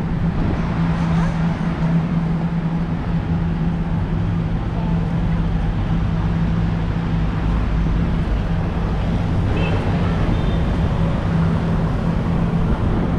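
Steady city street ambience: road traffic with a constant low hum.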